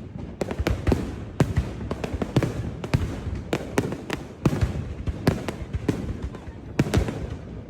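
Fireworks bursting: an irregular run of sharp bangs, several a second, over a low rumble.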